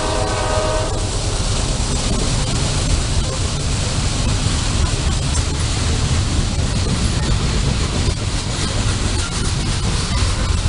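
A freight train's locomotive horn chord ends about a second in. After it comes the steady, loud rumble of the train rolling past close by.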